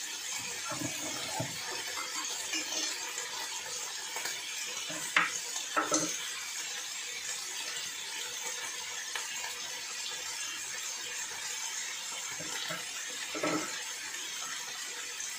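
Tuna steaks sizzling steadily on an electric grill pan, with a few light clicks of utensils against the pan and bowl about a third of the way in and again near the end.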